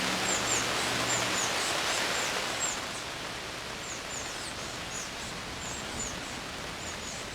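Wind rustling through the trees ahead of a storm, a steady hiss, with small birds giving short, high chirps over and over.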